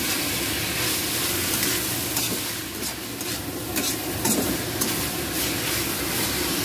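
Sliced bitter gourd and beef sizzling in hot oil in a wok while a metal spatula stirs and tosses them, with a run of sharp spatula clicks against the pan in the middle.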